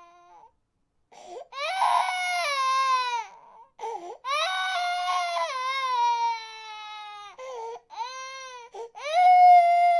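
Infant crying: a run of long wails, each starting high and sliding down in pitch, broken by short gasps for breath, with the loudest wail starting about nine seconds in.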